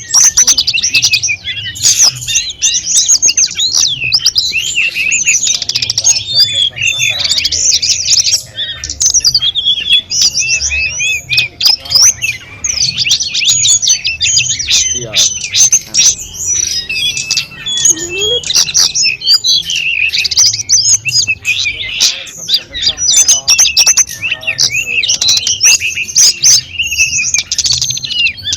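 Tledekan gunung songbird singing a dense, rapid, nearly unbroken stream of high chirps, trills and whistles, the kind of varied song used as a masteran for teaching caged birds.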